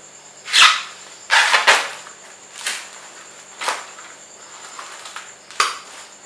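A clear plastic bag crinkling and corn husks rustling as ears of corn are pulled out of it, in about six short bursts. Twice there is a dull knock as a cob is set down on the stone countertop.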